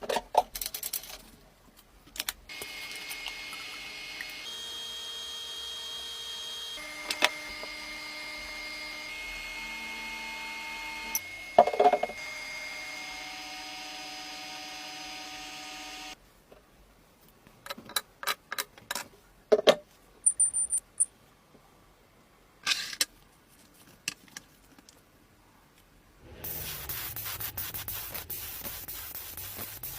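A run of workshop sounds cut together: scattered knocks and clicks, a long stretch of steady machine tones that change abruptly at cuts, and from about 26 s in, a steady rough hiss of sanding.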